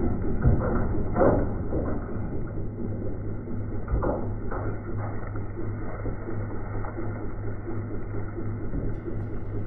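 Slowed-down audio of a John Deere 4400 compact tractor's three-cylinder diesel engine running as a low, steady drone, with a few knocks and clatters from the loader bucket working dirt and rocks about one and four seconds in. Music begins near the end.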